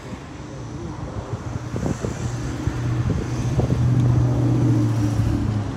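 A motor vehicle driving past: a steady engine hum grows louder, then drops in pitch and level near the end as it goes by.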